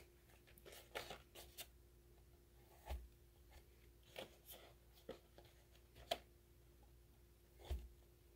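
Quiet handling of paper journal pages: scattered soft rustles and light taps, with a couple of dull thumps, over a faint steady hum.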